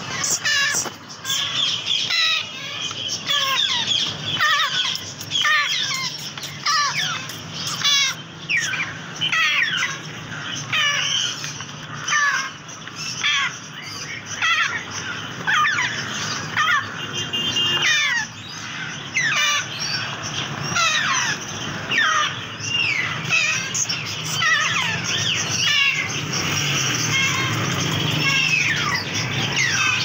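African grey parrot chicks giving repeated food-begging calls while being hand-fed with a syringe: short sweeping chirps, one or two a second.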